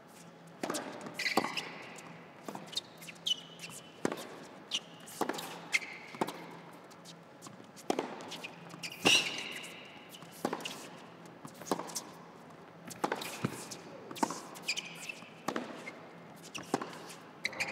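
Tennis rally on an indoor hard court: a serve a little under a second in, then racket strikes and ball bounces traded back and forth about once a second, with short squeaks of shoes on the court between shots.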